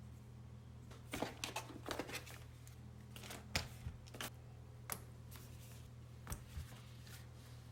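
Cardboard and plastic packaging handled during an unboxing: scattered light clicks, taps and rustles over a steady low hum.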